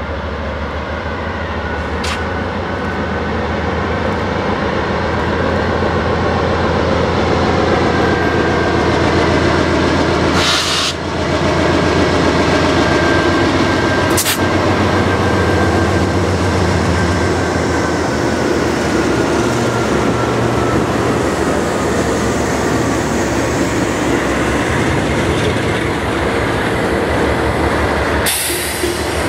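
Two CN GE diesel freight locomotives, a C44-9W and a C40-8, pulling a departing train under power and passing close by; their steady engine drone grows louder as they approach, and a high whine falls in pitch after they go by. Loaded lumber flatcars then roll past.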